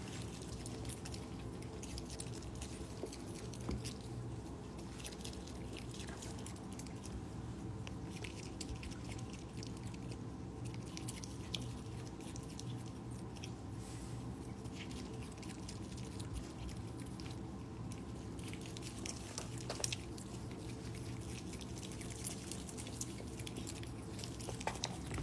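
Otter chewing crunchy snack biscuits, with scattered short crunches and clicks over a steady low hum.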